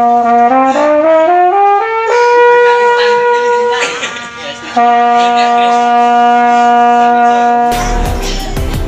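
Concorde marching mellophone played solo: a run of short notes climbing step by step, then a long held high note, a brief break, and a long held note an octave lower. Near the end, electronic music with a heavy bass beat cuts in over it.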